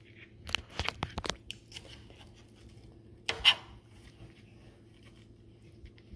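Kitchen knife cutting a tomato on a thin plastic cutting mat: a quick run of sharp taps as the blade strikes the mat between about half a second and a second and a half in, then one louder, longer cut about three and a half seconds in.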